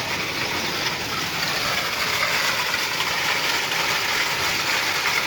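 Steady rushing hiss of a heavy storm downpour.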